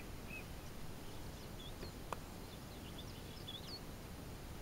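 Small songbirds singing in the background, a run of short, varied chirping notes that stops about three-quarters of the way through, over steady outdoor background noise. A single sharp click about two seconds in.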